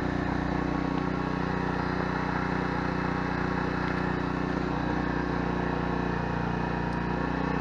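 Sportsman 1000-watt inverter generator's small 40 cc four-stroke engine running steadily at low speed in economy mode with no load, a quiet, even hum.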